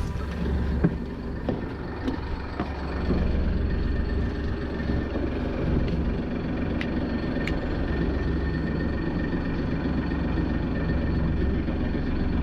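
Fishing boat's engine running steadily at sea, a low even hum, with a few light clicks in the first seconds.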